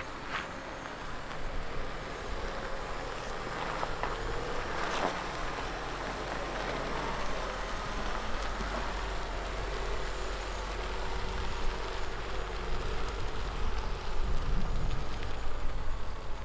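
2020 Land Rover Defender crawling over a dirt off-road trail: engine running at low speed with a steady rumble of tyres on dirt and gravel, and a few sharp clicks about four and five seconds in. It gets louder near the end.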